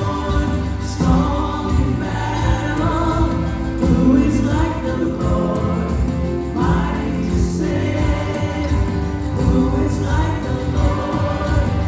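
Gospel music: a choir singing with instrumental accompaniment.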